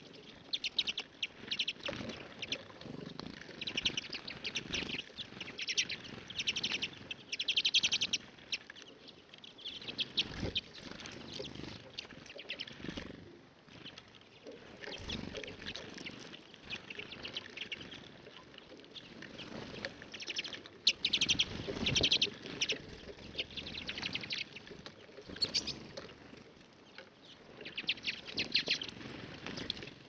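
Small songbirds twittering in short bursts of rapid notes every second or two, with a few thin, very high chirps.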